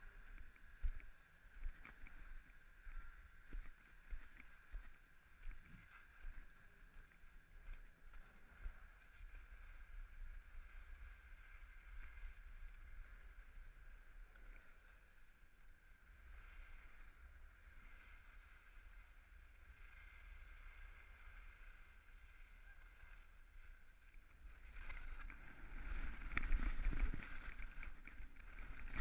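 Skis hissing and scraping over packed snow during a fast downhill run, with wind rumbling on the microphone; louder for the last few seconds.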